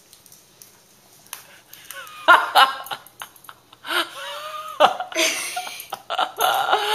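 Laughter and short wordless vocal sounds, beginning about two seconds in after a quiet start, from a boy who has just pressed a plate of whipped cream into his face.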